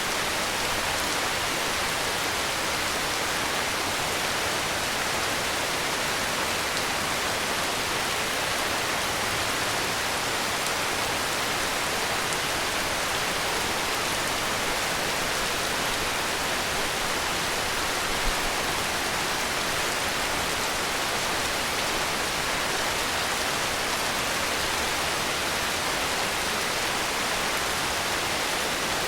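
Steady heavy rain: a dense, even hiss of rainfall with no breaks, and a single faint tick about two thirds of the way through.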